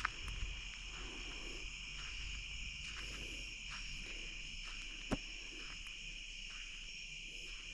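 Steady, high-pitched chorus of crickets and other night insects, with a single sharp click about five seconds in.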